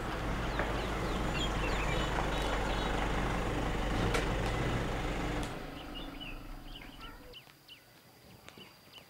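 A car engine runs steadily with a low rumble, then stops about five and a half seconds in. Birds chirp throughout and are left on their own at the end.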